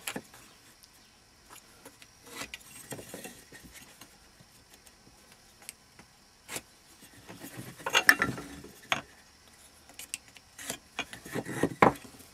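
Hand tools being handled on a wooden workbench while marking out a lime blank: a try square and pencil picked up, set down and held against the wood, giving scattered clicks and knocks, louder about eight seconds in and again near the end.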